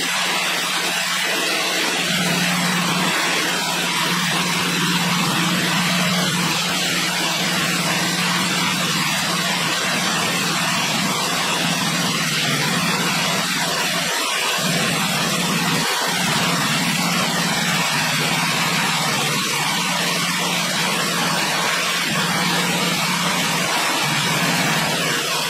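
An engine running steadily at an unchanging speed, with a constant low hum under a strong even hiss.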